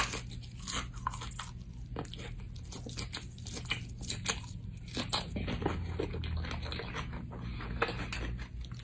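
Crisp crunching and chewing of a fried, sushi-stuffed jalapeño popper close to the microphone: many short crackles, with a sharp click right at the start.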